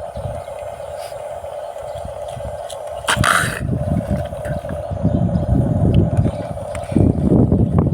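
Small radio-controlled bulldozer working in sand: a steady electric-motor whine, with scraping and rumbling that grow louder about three seconds in and again near the end. There is a brief hiss just after three seconds.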